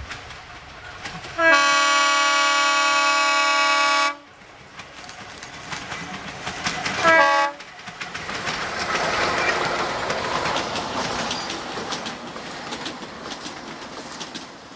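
Narrow-gauge diesel locomotive sounding its horn: one long blast of about two and a half seconds, then a short second blast. The train then passes with its wheels clicking over the rail joints, swelling and fading away.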